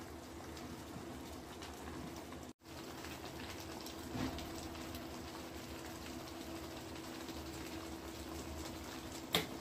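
Thick dal and potato curry simmering in a steel kadai over a gas burner: a faint steady hiss with scattered small bubbling pops. A short knock sounds near the end.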